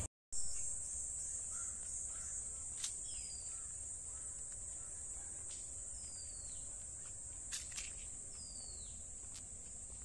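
Steady high-pitched insect drone, with a bird giving three short falling whistles about three seconds apart.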